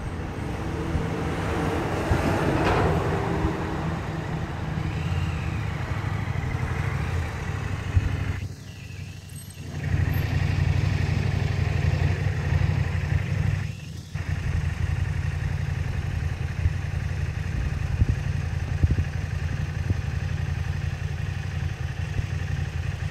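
Wind buffeting the microphone: a low, gusty rumble that swells about two seconds in and drops away suddenly twice, around eight and fourteen seconds in.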